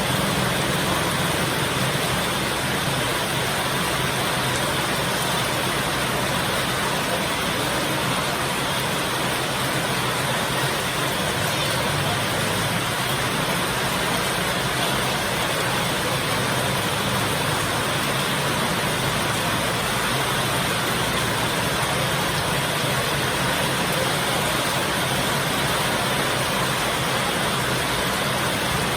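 Heavy rain falling steadily: a dense, even rush of rain that does not let up, with no thunderclaps.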